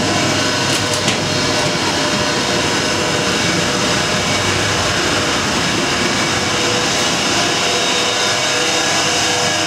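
Steady whir of the EP20 electric locomotive's machine-room equipment running, a loud even noise with several steady hums through it. It rises as the camera enters the equipment corridor.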